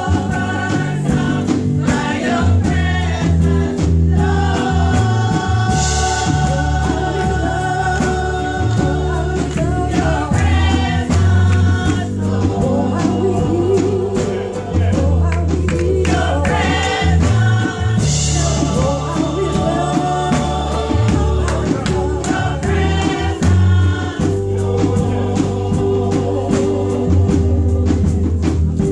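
Women's gospel vocal group singing together over accompaniment with a strong bass line and a steady beat.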